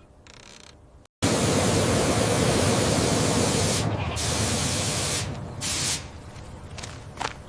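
Loud, even rushing noise that starts abruptly about a second in, breaks off briefly twice, and falls to a fainter hiss with a few light clicks near the end.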